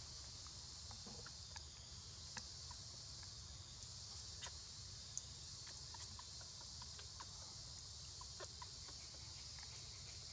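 A faint, steady chorus of insects, high-pitched and unbroken, with scattered light ticks and crackles.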